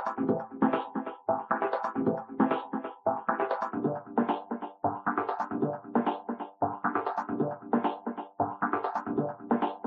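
Background music: electronic synthesizer music with a quick, steady beat.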